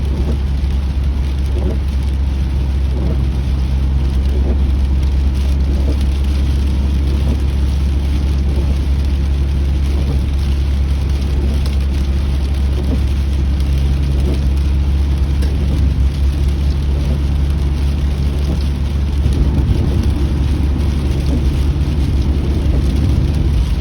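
Steady low road and engine rumble of a moving car heard from inside the cabin, with rain pattering on the car's roof and glass.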